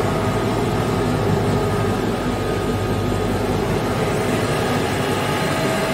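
A KAESER Aircenter SM12 rotary screw air compressor (7.5 kW) running steadily with a constant hum and a thin whine, having reached 11 bar and cooling down. Its low rumble eases a little about four seconds in.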